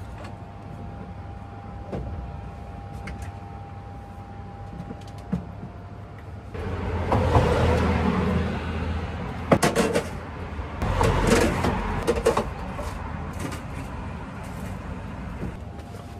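A car driving past on the road, a swell of tyre and engine noise that rises about six and a half seconds in and fades by about nine seconds. A few sharp knocks follow, then another shorter burst of noise.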